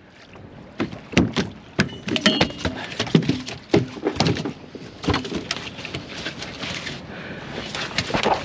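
Irregular knocks, thuds and clatter in a small fishing boat as a large smoothhound is brought aboard and handled, about five seconds of it. After that the clatter gives way to steady wind and water noise.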